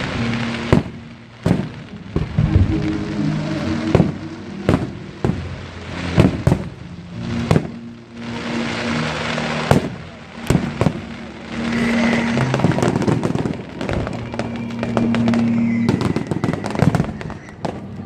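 Fireworks display: aerial shells bursting in a quick, irregular series of sharp bangs, with stretches of dense crackling hiss between them, over music with sustained tones.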